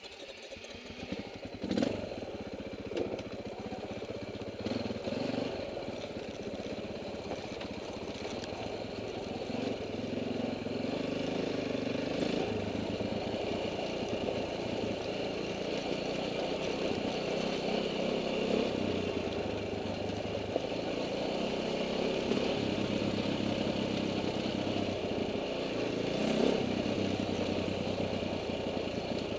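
KTM enduro dirt bike engine running as the bike rides a gravel trail, its pitch rising and falling with the throttle, with a few sharp clatters from the trail.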